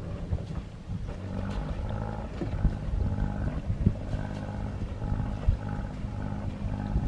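A boat's engine running steadily at low speed, with a few low thumps over it.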